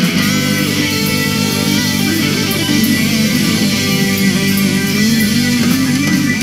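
Live band playing an upbeat rock instrumental on electric guitar, bass guitar and keyboard.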